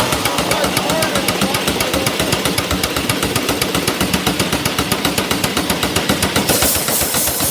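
An old engine running with a fast, even exhaust beat of about seven sharp pops a second, with a short burst of hiss near the end.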